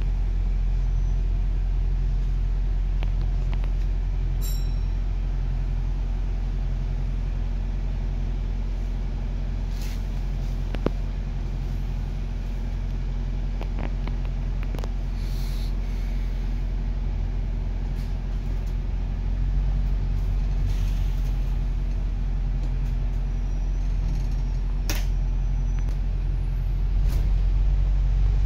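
Steady low rumble of a double-decker bus running, heard from inside on the upper deck, with a few sharp clicks and rattles and a short hiss about halfway through.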